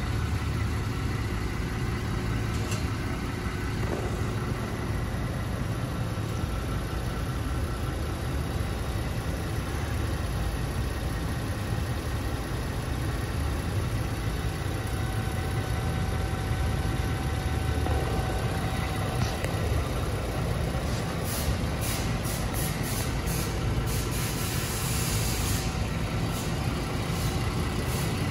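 Ford Transit AWD van's engine running steadily at idle, with a scatter of faint light clicks in the last few seconds.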